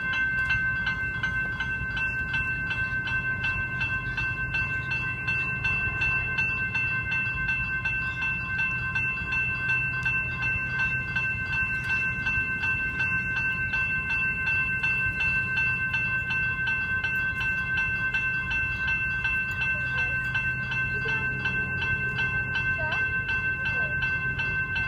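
General Signals electronic level crossing bell ringing steadily while the crossing is active, over a steady low rumble.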